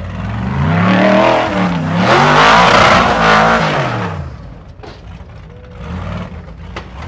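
Ultra4 rock-racing car's engine revving hard under load as it climbs through boulders, its pitch rising and falling in several surges. It drops back after about four seconds, with one shorter rev about six seconds in.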